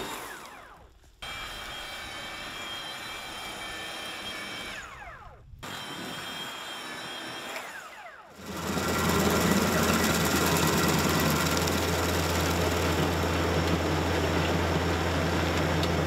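A battery-powered Stihl KombiSystem motor whirrs as it spins a rotary brush attachment through sawdust and dirt, with short breaks where its pitch falls away. About eight seconds in, a tractor-driven Baumalight 1P24 stump grinder takes over, running and grinding into a stump with a louder, steady low hum.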